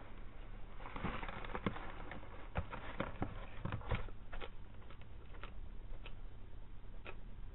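A black-and-white tegu moving at its plastic food bowl: a short scuffle about a second in, then irregular sharp clicks and taps, a dozen or so, over a steady low hum.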